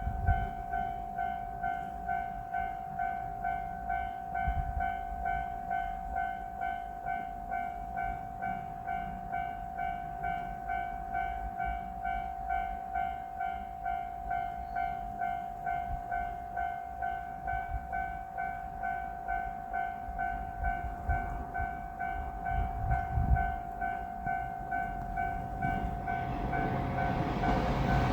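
Japanese railway level-crossing alarm ringing, a steady electronic ding repeating about twice a second. Near the end, the noise of the approaching JR Shikoku 1200-series diesel railcar rises beneath it.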